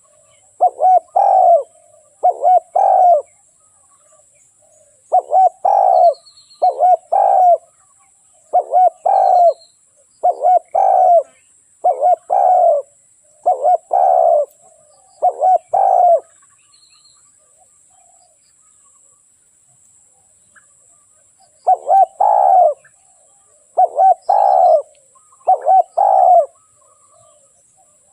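Spotted dove cooing: short multi-note coo phrases repeated every second or two, a run of about nine, then a pause of several seconds and three more near the end. A faint steady high hiss runs underneath, with a few faint high chirps.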